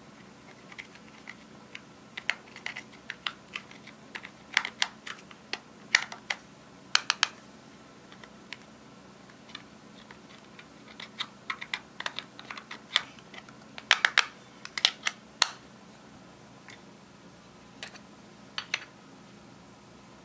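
Irregular sharp clicks and scraping taps of a small metal spatula digging pressed eyeshadow out of a plastic compact. They come in two busy clusters with quieter gaps between.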